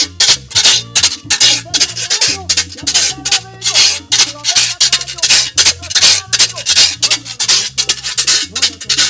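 Metal güira scraped in a steady fast rhythm, several rasping strokes a second, over a backing track with a bass line.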